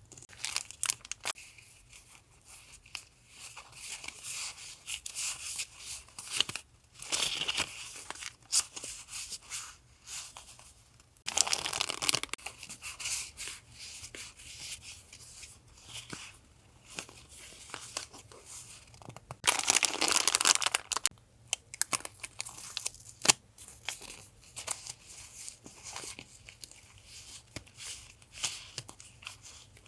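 Paper and plastic sticker packaging crinkling and rustling as it is handled, in irregular crisp crackles. Two longer, louder rips come about twelve and twenty seconds in, as packaging is torn.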